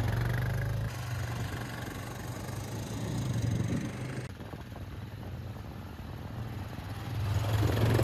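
All-terrain vehicle (ATV) engine running at low speed, a steady low hum. It drops away suddenly about a second in and again around four seconds, then grows loud again near the end.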